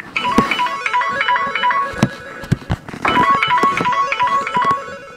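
A stock Samsung Galaxy S4 Mini ringtone playing: a guitar melody over percussion, its short phrase played twice with a brief break between.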